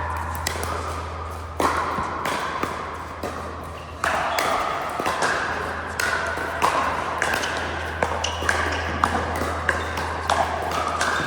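Pickleball paddles striking a plastic ball and the ball bouncing on the court: sharp, irregular pops about one or two a second, over a steady low hum.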